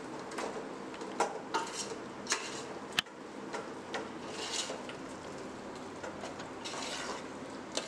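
A metal spoon stirring a thick, wet masala in a metal pot, scraping and clinking against the pot's sides and bottom in irregular strokes, with one sharp clink about three seconds in.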